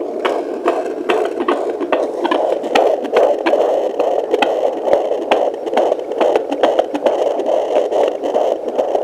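Fetal heartbeat played through a Sonoline C 2 MHz pocket fetal Doppler's speaker: rapid, even pulses a little over two a second over a steady hiss, a heart rate of about 136 beats a minute.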